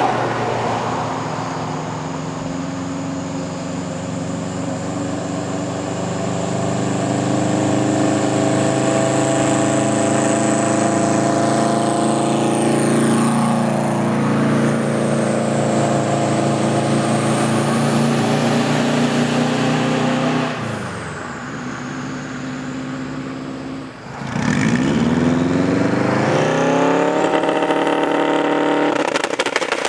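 Turbocharged Subaru WRX wagon's flat-four engine held at steady high revs, with a high whine over it. About two-thirds of the way through the revs drop away, then climb again and hold.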